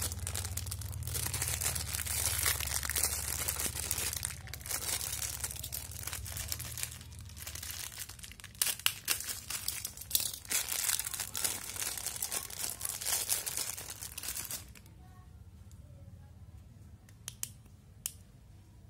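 Thin clear plastic bags crinkling and rustling as they are handled and opened around small push-in hose fittings. The crinkling stops about three-quarters of the way through, leaving a few small clicks near the end.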